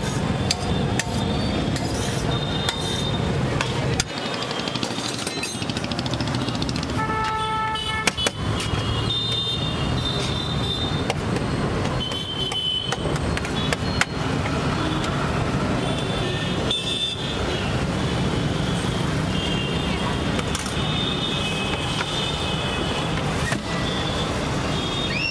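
Steady street traffic noise, with a vehicle horn sounding about seven seconds in and a few other short high toots.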